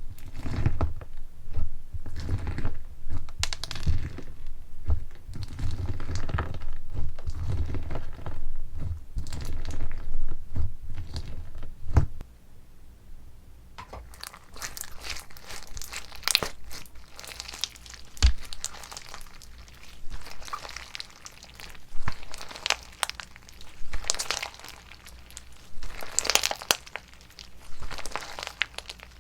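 Slime being squeezed and stretched, with dense squishing for about the first twelve seconds. Then it changes abruptly to quieter, sparser crackling and crinkling pops.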